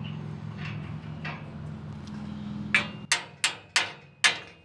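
A low steady hum, then from near the three-second mark a hammer striking steel in quick ringing blows, about three a second, five in all: driving a pin out of a Ferris wheel rim iron, hammering on a nut threaded onto its end.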